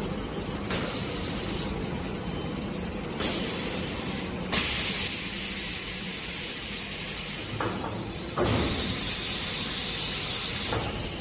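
Automatic flip mattress tape edge machine working as its flip table lifts. Air hisses start and stop over a steady machine hum: short ones near the start, then two long ones, the loudest beginning about four and a half seconds in and lasting about three seconds.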